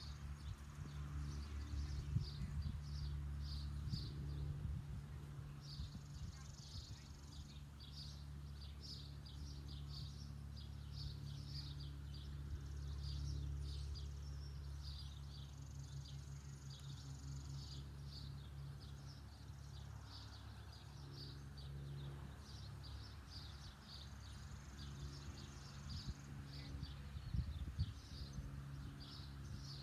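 Outdoor ambience: rapid high-pitched chirping in repeated bouts of a second or two, over a steady low hum.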